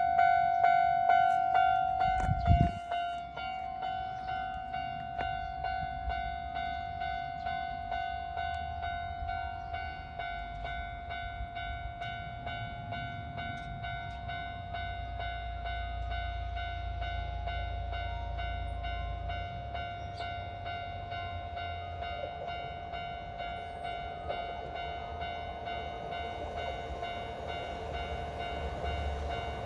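Japanese level-crossing warning bell ringing steadily, its electronic ding repeating about one and a half times a second. A single loud thump comes about two and a half seconds in, and a low train rumble swells under the bell between about ten and twenty seconds in.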